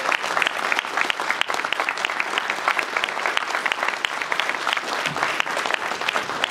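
Audience applauding: a large crowd clapping steadily without pause.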